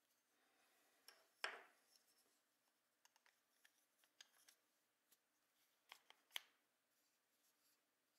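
Faint handling of a small tanto knife and its wooden sheath: a short scrape about one and a half seconds in, scattered light clicks, then two sharper clicks about six seconds in as the blade is slid home into the sheath.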